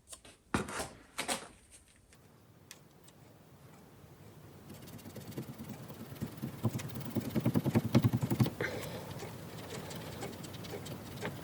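A steel pick scraping rapidly back and forth on the rusted metal pins of a jukebox selection mechanism, breaking up the rust layer. A few light clicks come first; the scratching builds to a fast, uneven rasp in the middle and eases off toward the end.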